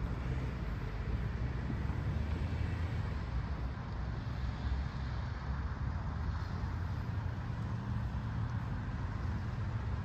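Steady low rumble of a vehicle, even throughout with no clear beat.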